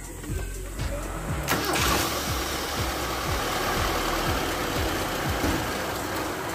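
Kia Pride engine cranked by its repaired starter, catching on the first try about a second and a half in and then running steadily. The starter, fitted with new carbon brushes, now starts the engine with a single click.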